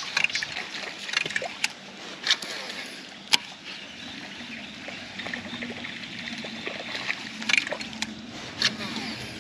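Water trickling and sloshing against a fishing kayak, with scattered sharp clicks and knocks, the sharpest about three and a half seconds in. A faint low hum comes in about halfway.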